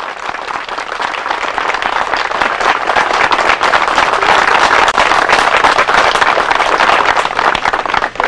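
Crowd applauding: a dense patter of many hands clapping that swells over the first few seconds and thins out near the end.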